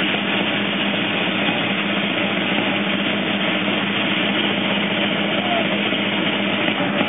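A drum played in a steady, unbroken roll, echoing around a small stone square, as the beat for flag-waving practice.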